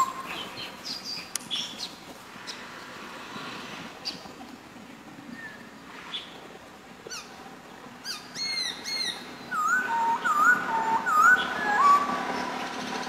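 Black-throated laughingthrush singing: after a quieter stretch of scattered short high calls, a phrase of quick high notes about eight seconds in, then a string of clear whistled notes, each slurring upward, repeated through the rest.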